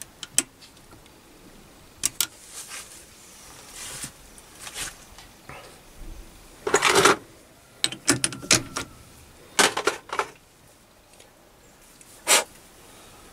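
A run of separate metallic clicks and knocks from handling a stopped lathe's three-jaw chuck as a small brass part is loosened and taken out of the jaws, the busiest clatter about halfway through.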